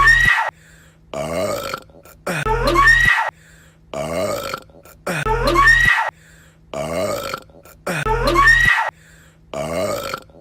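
A person burping loudly, with the same short burp clip looped over and over about every three seconds. Each repeat has a falling, drawn-out part followed by a louder, rougher one.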